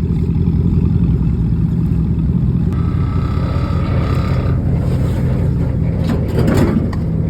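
Vehicle engine running at a steady speed, a low, even engine note. A higher steady tone joins for a couple of seconds about three seconds in, and a brief rushing swell comes near the end.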